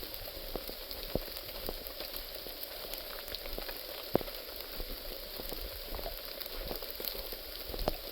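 Rain falling on leaves in woodland: a steady hiss with scattered, irregular drop ticks, the sharpest about four seconds in.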